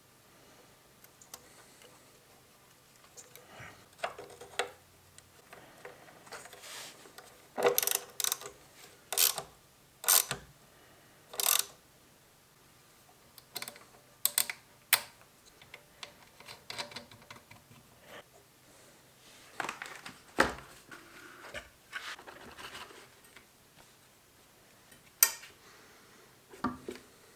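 Hand tools and metal parts being handled at a workbench: irregular sharp clinks, clicks and knocks, a few of them loud, with quiet gaps between.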